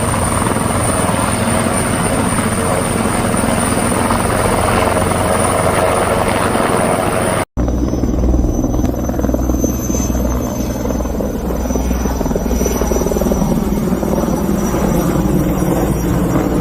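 Firefighting helicopter running steadily, its rotor and engine making a continuous loud drone. About seven and a half seconds in, the sound breaks off for an instant and resumes with a heavier low rumble.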